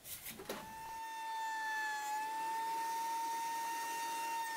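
A few scraping clicks of a paint scraper prying a board loose, then from about half a second in a DeWalt thickness planer running with a steady high whine that dips slightly in pitch about two seconds in.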